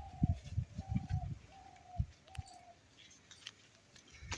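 A dove cooing: a string of short, even coos at one pitch, four or five in the first three seconds, with soft low thumps among them.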